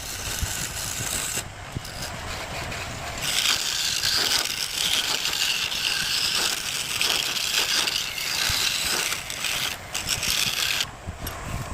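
A tool scraping and rubbing on wood with a continuous gritty rasp, starting about three seconds in and stopping shortly before the end.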